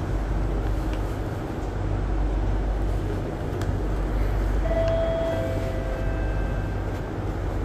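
Steady low hum and rumble inside a stationary C151B MRT train with its doors open at a station platform. A brief electronic tone sounds about halfway through.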